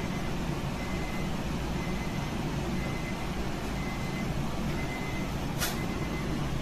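Steady low background rumble, like a kitchen's fans or machinery running, with a faint high tone that comes and goes and a single sharp click about five and a half seconds in.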